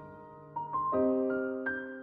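Background piano music: a few soft notes and then a chord, struck and left to ring as the music fades.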